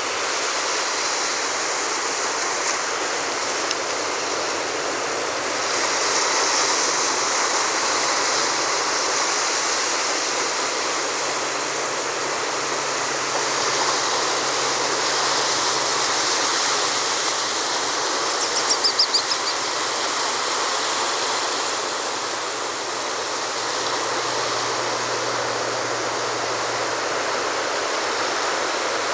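Ocean surf breaking and washing up the sand at the water's edge: a steady rush that swells and eases every few seconds. A short run of high chirps comes about two-thirds of the way in.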